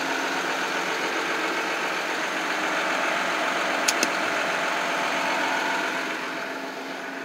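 An engine idling steadily, with two short sharp clicks about four seconds in; the idle gets a little quieter near the end.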